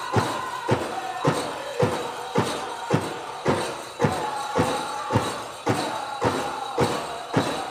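Powwow drum group performing a prairie chicken dance song: a big drum struck in a steady beat of close to two strokes a second under high-pitched singing.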